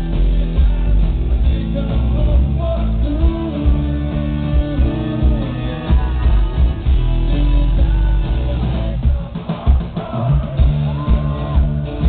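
Live rock band playing loud, amplified: electric guitars over a drum kit, with a bending melodic line on top.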